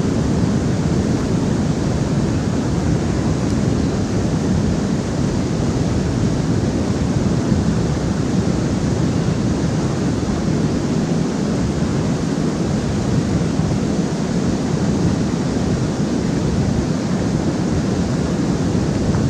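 Water pouring over a low river dam, a loud, steady rushing with no breaks.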